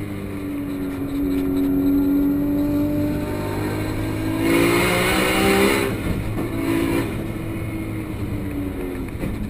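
Nissan Skyline GT-R R34 race car's straight-six engine pulling hard under load, heard from inside the cabin, its note climbing slowly. Just before halfway a loud hissing rush rises over the engine and cuts off about six seconds in, and the engine then runs on at a steadier note.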